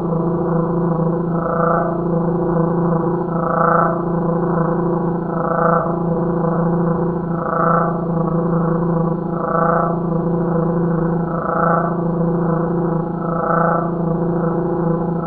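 Crickets chirping, slowed down greatly, turned into a steady low hum with higher overtones. The upper tones swell about once every two seconds.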